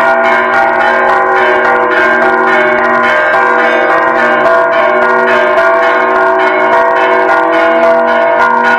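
Several church bells ringing together for a funeral, struck again and again in quick succession so their pitches overlap and ring on steadily.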